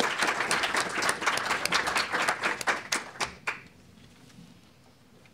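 Audience applauding, a dense patter of many hands clapping that dies away about three and a half seconds in, leaving quiet room tone.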